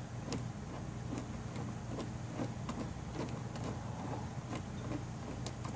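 Hand rivet-nut (nutsert) tool being unthreaded from a freshly set nutsert in a plastic bumper: a run of light, irregular ticks, about two or three a second, over a steady low hum.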